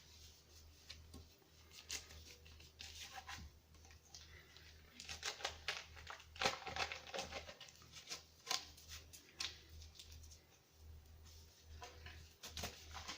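Handling noise: a run of rustles and light clicks and taps as items, paper or plastic packaging are picked up and sorted, busiest in the middle, over a steady low hum.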